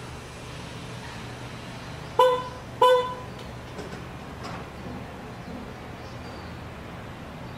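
Two short toots of a vehicle horn, about two-thirds of a second apart, over a steady low hum of background traffic.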